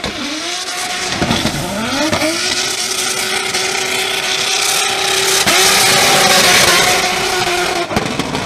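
BMW E46 drift car's engine revving hard, its pitch climbing twice in the first couple of seconds, then held at high revs for about five seconds while the rear tyres spin and screech in a drift. The revs drop away near the end.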